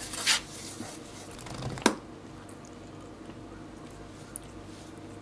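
Siamese cat rolling over and grooming itself on a terry towel: soft rustling of fur against the towel and quiet licking, with one sharp click a little under two seconds in.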